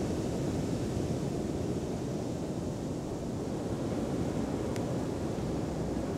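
Steady seaside ambience: wind rumbling on the microphone over the wash of sea surf, with one faint click about five seconds in.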